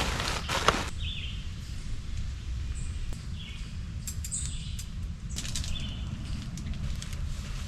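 Wild birds giving short, high chirps every second or so over a steady low rumble, with a couple of brief rustles.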